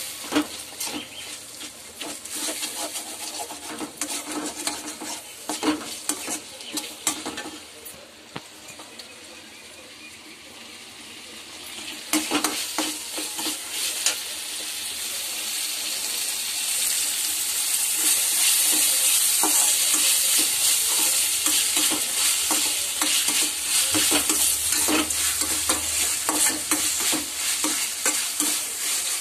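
Tomatoes, onions and coriander leaves sizzling in oil in a metal pan while a metal slotted spoon stirs them, scraping and clinking against the pan. The sizzle swells from a little before halfway and stays loud to the end.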